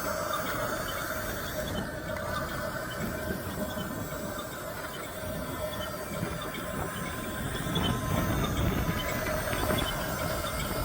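A 1/16-scale RC bulldozer running, with a steady whine and hiss and light ticking from its drive and tracks; it gets louder for a couple of seconds about eight seconds in.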